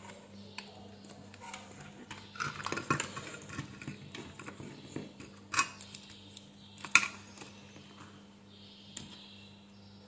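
Small clicks and light rattling of a headset's plastic ear-cup shell, circuit board and wires being handled and pressed into place, with one sharp click about seven seconds in. A faint steady low hum runs underneath.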